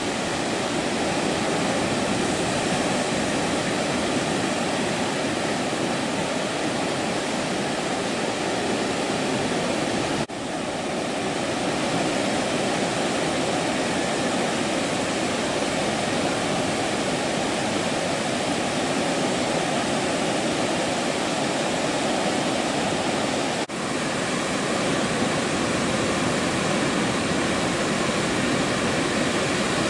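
Steady rushing noise of ocean surf breaking on a beach, with no pitch to it. It dips briefly about ten seconds in and again about twenty-four seconds in, then builds back up.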